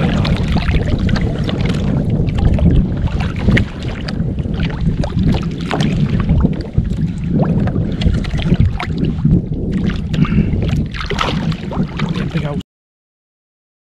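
Wind buffeting the microphone and water washing against a fishing kayak, with many scattered clicks and knocks. The sound cuts off abruptly near the end.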